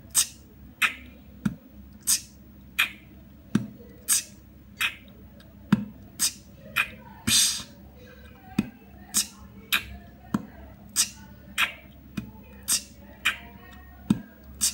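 Beatboxing at a slow tempo: the beginner pattern "BtK BtK BtK BtK psh", a bass-drum 'B', hi-hat 't' and click-snare 'K' in an even rhythm of about one and a half sounds a second, each bar closed by a longer 'psh' cymbal hiss, going round about twice.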